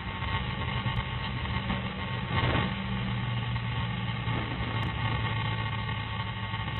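Vehicle engine idling with a steady low hum, and a brief rustle of the body camera moving about two and a half seconds in.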